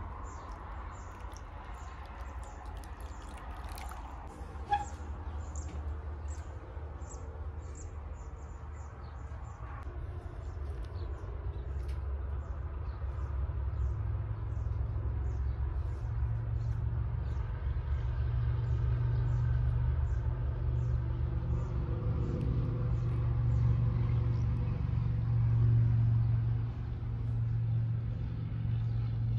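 Small birds chirping over and over, with a low rumble underneath that grows louder in the second half. One sharp knock about five seconds in.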